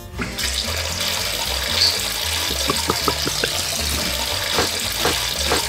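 Bath tap running, water pouring steadily into a bathtub, over background music with a steady bass beat.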